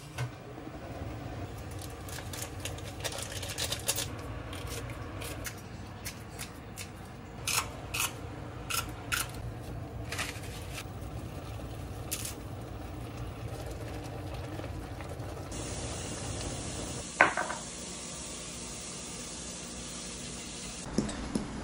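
Broth bubbling at a boil in a stainless steel pot, with scattered clinks and taps of utensils. A sharp knock comes about seventeen seconds in, and the bubbling drops away after it.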